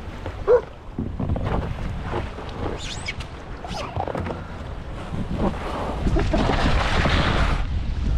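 Wind buffeting the microphone over water splashing, growing stronger in the last couple of seconds, with one short pitched squeak or call about half a second in.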